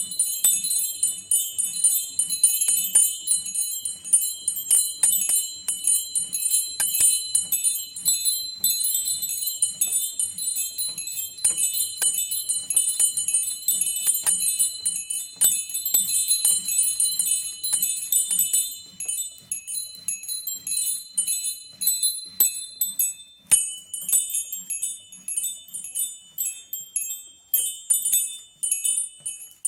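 Small bells of a home miniature bell tower rung in a rapid scampanio, many strikes a second with the bells ringing over one another. After about twenty seconds the strikes come more sparsely and one of the higher tones stops.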